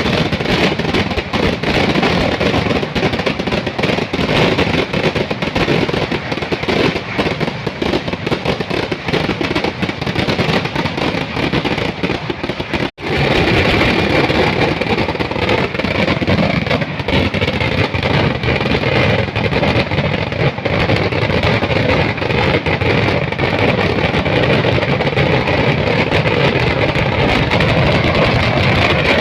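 Kerala temple fireworks (vedikettu) going off in a dense barrage: rapid explosions running together into a continuous loud crackling din, with a sudden momentary drop-out about 13 seconds in.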